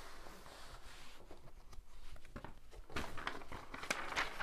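Rustling and crinkling of a large diamond painting canvas as it is handled and laid flat, with scattered light clicks that grow busier in the last second and a half.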